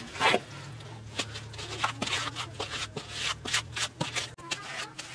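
Wet mud plaster being pressed and smoothed by a gloved hand onto the brick side of a mud stove: a run of short, irregular scraping and rubbing sounds.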